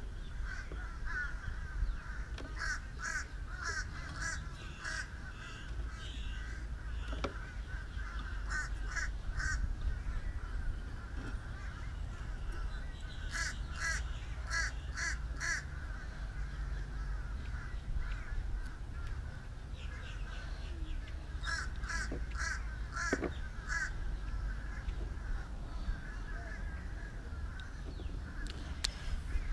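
Crows cawing in runs of four to six short calls about two a second, several times over, above a steady low rumble.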